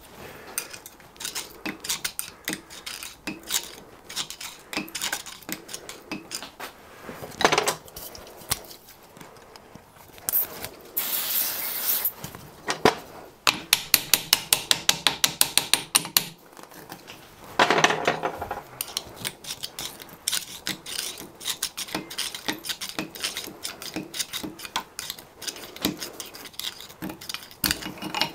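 Hand tools clinking, knocking and scraping against a Sentinel steam waggon valve body held in a vice, working the old gland packing out. About halfway through comes a quick run of about two dozen light taps.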